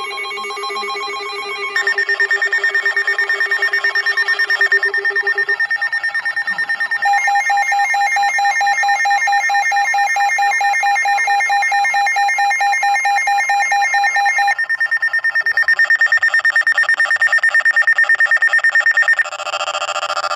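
Several electronic alert alarms at different pitches beeping rapidly and overlapping, typical of weather alert radios sounding for a new warning. The tones come in and drop out at different moments, with the lowest dropping out about a quarter of the way through.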